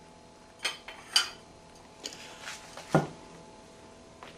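A knife and plate clinking and knocking as slices of bread are served: two sharp clinks about two-thirds of a second and a second in, some light rustling, then a duller, louder knock about three seconds in.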